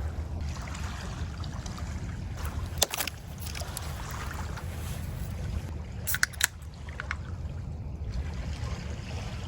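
Steady low wind rumble on the microphone with water washing on a lake shore, broken by a sharp click about three seconds in and a quick cluster of clicks around six seconds in.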